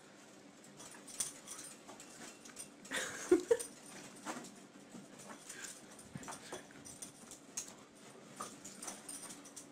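Small dog scuffling and pawing at the carpet, a run of short scratchy rustles, with two brief squeaky sounds about three seconds in.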